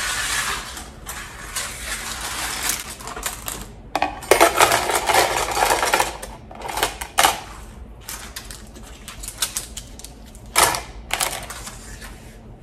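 Plastic toy kitchen utensils clattering and rattling into a plastic storage bin as they are dropped and sorted in by hand. The clatter comes in bursts with short pauses and is busiest in the middle.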